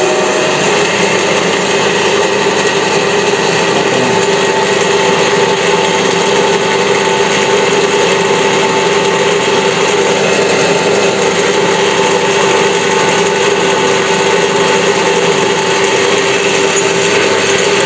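WEISAN CJM360 metal lathe turning a thick-walled steel pipe at about 600 rpm, the cutter taking a dry cut with no coolant. A steady machining whine over an even hiss.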